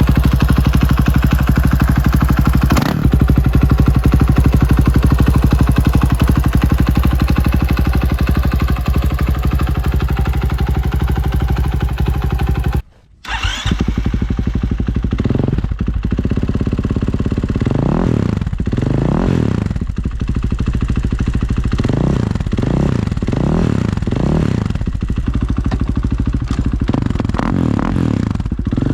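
Husqvarna FE 501's single-cylinder four-stroke engine running through a full FMF aftermarket exhaust. It idles steadily, breaks off briefly about halfway, then is revved in a series of throttle blips that rise and fall back.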